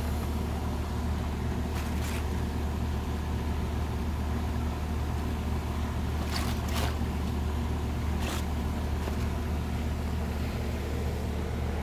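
Steady low mechanical hum of a running motor, with a few brief handling noises.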